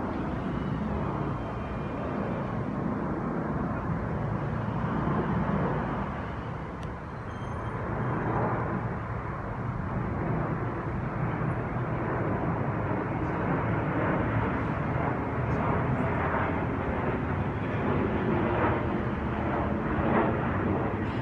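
Jet airliner flying overhead: a steady rushing rumble of its engines.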